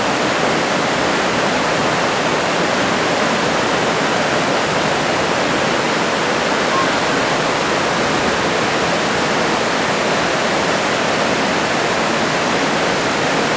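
Heavy rain, with storm water rushing down a flooded street: a loud, steady rush of water that does not let up.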